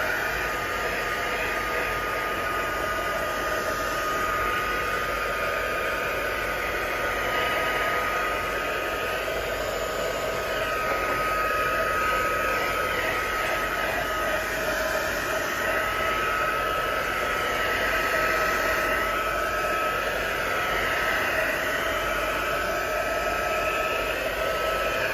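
Embossing heat tool running steadily, a rush of blown air with a steady high whine, drying wet acrylic paint.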